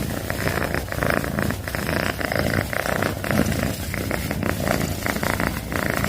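Domestic cat purring steadily, the purr swelling and easing with each breath.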